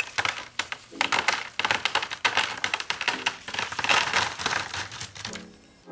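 Dozens of miniature prop cash bundles raining down onto a table, a dense patter of small taps and rustles that keeps up for about five seconds and stops shortly before the end.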